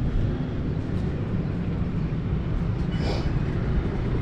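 Steady low rumble of vehicle noise, with a brief higher-pitched sound about three seconds in.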